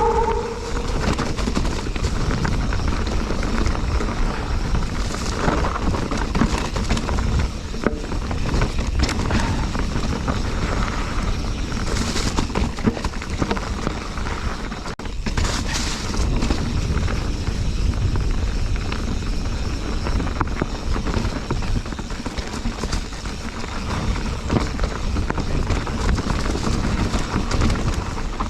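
Full-suspension Specialized Stumpjumper FSR mountain bike riding over rocky singletrack: a steady rush of wind on the microphone with constant rattling and knocks from the bike and tyres on the rocks.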